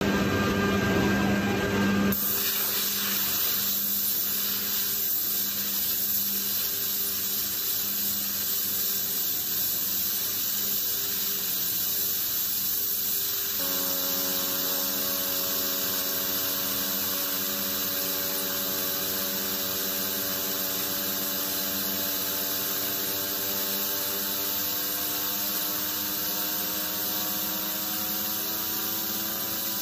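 Compressed air hissing from a blow gun, with an apple spinning in the jet. About halfway through, a whine sets in and slowly climbs in pitch as the apple spins faster.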